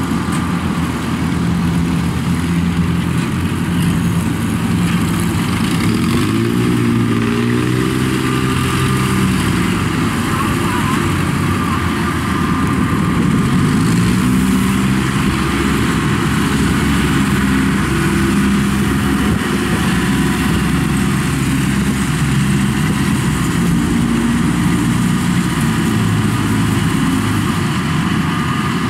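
Engine of a tracked rice-hauling carrier running steadily under load as it crawls across a rice field, its pitch rising as the engine speeds up about six seconds in and again near the middle.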